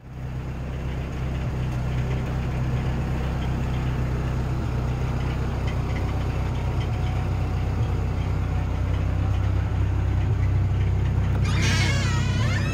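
Steady low mechanical hum, like an idling engine or running machinery. About a second before the end, a brief high squeal wavers in pitch.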